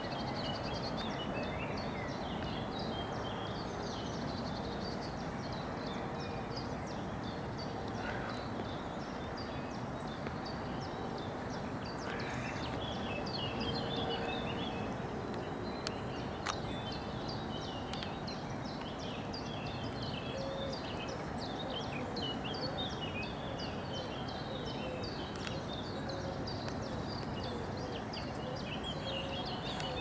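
A dense chorus of short, high bird chirps and twitters over a steady outdoor background hum.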